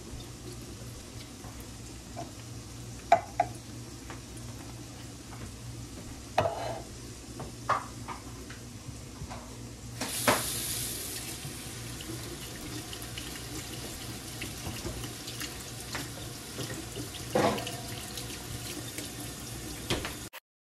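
Kitchen faucet running into a stainless steel sink as diced tomatoes are rinsed in a mesh strainer. The water gets louder about halfway through. A few sharp clinks and knocks come through in between.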